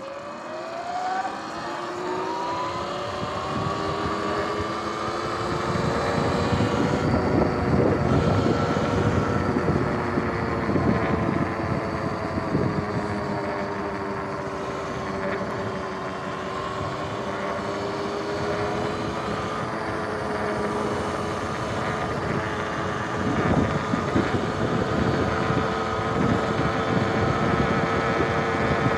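Sur-Ron Light Bee X electric dirt bike's motor whining as the bike accelerates, its pitch rising over the first couple of seconds and then holding with small rises and falls while cruising. A steady rush of wind and tyre noise runs underneath.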